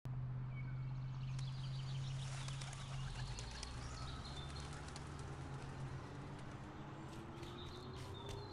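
Birds chirping, with short calls and sharp clicks, over a low steady hum.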